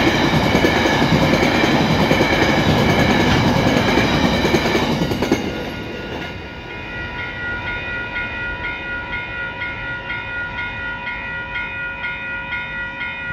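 Coal wagons of a freight train clattering over the level crossing, the rumble stopping about five seconds in as the last wagon clears. The crossing's warning bells ring on after it, pulsing about twice a second.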